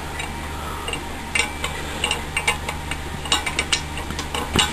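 Scattered light metallic clicks and clinks from BMX crank and bearing parts being handled as a threaded piece is started on by hand, over a steady low hum.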